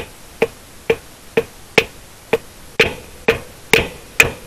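Metal being struck with a hammer in steady blows, about two a second, each with a short metallic ring. The blows grow louder and ring longer in the second half.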